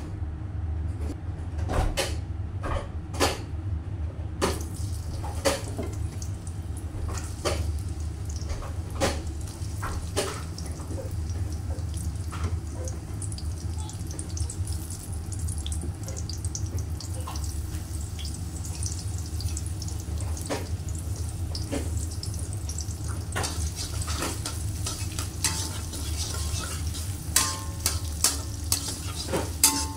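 Garlic and shallots frying in hot oil in a wok: a steady sizzle that starts a few seconds in, with scattered sharp clicks and pops, and a metal spatula stirring near the end.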